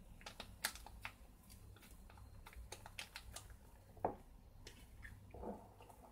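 Faint, irregular small clicks and taps as hands mix soft cookie dough in a glass bowl and shake a paper vanilla sachet empty over it. The sharpest click comes about four seconds in.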